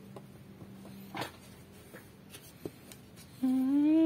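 A few faint clicks and knocks from handling the circuit board and soldering iron, then about three and a half seconds in a man starts humming, holding one loud note.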